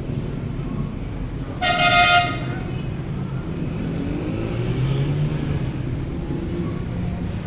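A vehicle horn honks once, for about half a second, roughly two seconds in, over the steady low rumble of road traffic; an engine note rises and falls around the middle.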